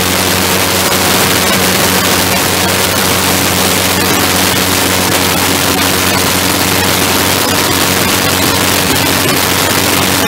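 Small ground-effect craft's engine and propeller running at a steady cruising drone, under a loud, even rush of wind.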